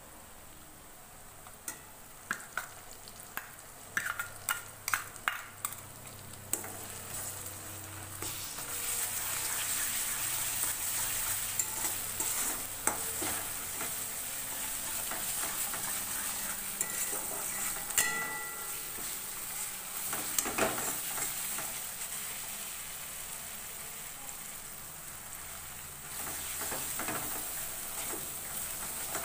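Sliced onions frying in oil in a metal wok. A run of sharp taps between about two and six seconds in as paste is knocked in from a small steel bowl, then a steady sizzle with a wooden spatula stirring and scraping against the pan.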